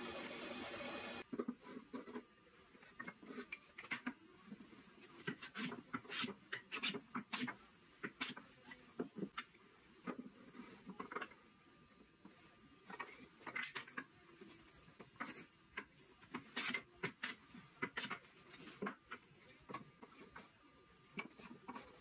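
A drill press runs and stops abruptly about a second in. Then wooden drawers are pushed into and pulled out of a solid-walnut chest of drawers, with irregular knocks and wood rubbing on wood as they are test-fitted.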